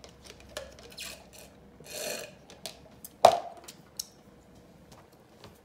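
Scattered small clicks and rubbing sounds of close handling, with a short hiss about two seconds in and one sharp knock a little after three seconds, the loudest sound.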